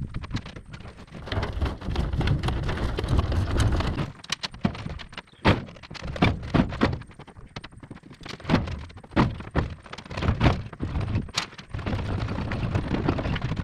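A series of irregular knocks and thuds over a rumbling background.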